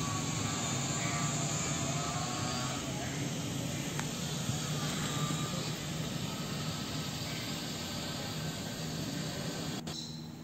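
Steady outdoor roar of a jet aircraft passing overhead, slowly fading, over a low steady hum. It drops away near the end.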